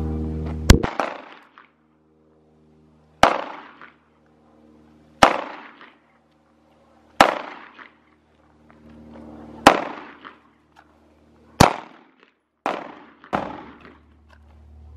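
Eight single 9mm shots from a Glock 19 pistol, fired at a steady pace about two seconds apart, the last three coming quicker. Each is a sharp crack with a short echo.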